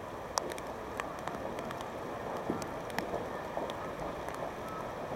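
Light rain pattering, heard as scattered sharp taps over a steady hiss.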